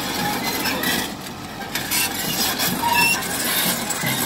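John Deere 120C hydraulic excavator running and turning on its steel tracks, with the track links clanking and clinking over the diesel engine. It dips a little quieter about a second in.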